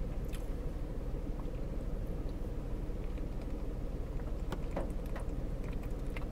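Steady low rumble inside a car cabin, with a few faint clicks and swallows as a man drinks from a plastic water bottle.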